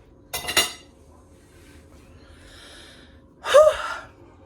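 A woman's breathing sounds: a sharp noisy breath just after the start, then a short voiced gasp with a rising-and-falling pitch about three and a half seconds in.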